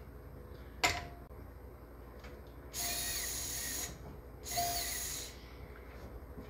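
A sharp click, then two short runs of a small electric motor, each about a second long, spinning up and winding down.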